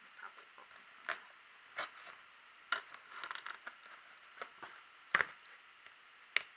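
Scattered clicks and knocks of a taped cardboard shipping box being handled. A louder thud about five seconds in as the box is set down on a cutting mat.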